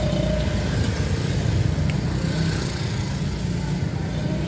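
Steady low rumble of passing road traffic.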